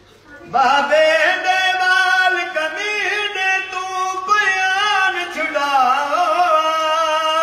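An elderly man singing unaccompanied in a Punjabi folk-style lament: one long phrase of held, ornamented notes that waver and bend in pitch. It starts about half a second in.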